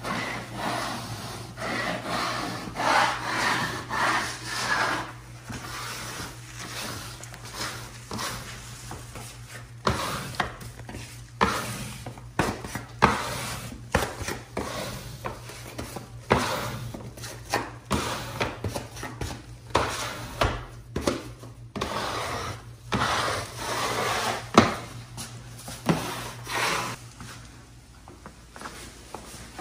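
Cork wallpaper being worked by hand on the wall: repeated rubbing and smoothing strokes over the cork, with scattered sharp taps and clicks. A steady low hum sits underneath.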